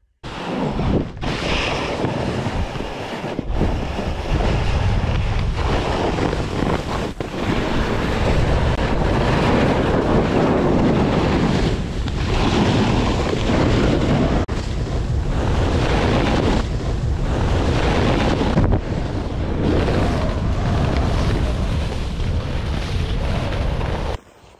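Wind rushing over the camera microphone during a fast ski descent, a loud steady rush with skis running over firm, wind-rippled snow underneath; it cuts off suddenly near the end.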